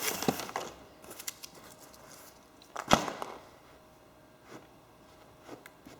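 Handling noises of someone working on a recliner: scattered rustles and clicks, one sharp knock about three seconds in, then a few faint ticks.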